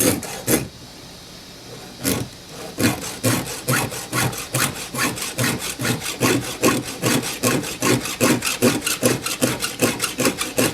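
Round chainsaw file rasping across the cutter teeth of a saw chain in short, even strokes, about four a second, settling into a steady rhythm about three seconds in after a few separate strokes.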